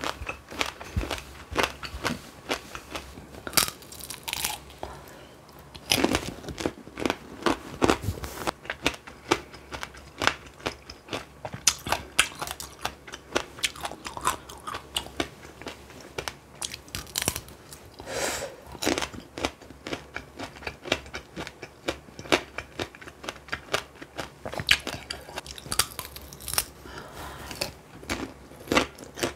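Tanghulu being eaten: the hard candied-sugar shell on the fruit cracking between the teeth in many sharp, irregular crunches, with chewing between them.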